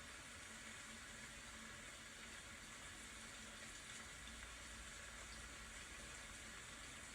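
Steady, faint rain falling.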